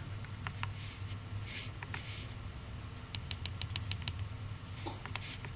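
Keys of a TI-Nspire CX II-T graphing calculator clicking as buttons are pressed: a few separate clicks, then a quick run of about seven presses a little after three seconds in, and a few more near the end.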